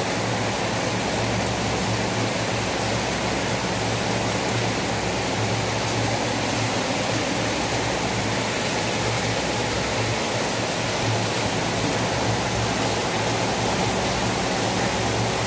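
Heavy rain falling in a steady downpour, an even, unbroken hiss, with a steady low hum underneath.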